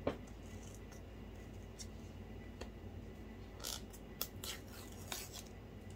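Paper tear-strip seal being pulled off an iPhone 14 Pro box: fingernails scratching at the cardboard edge, then a few short tearing, rasping sounds in the second half.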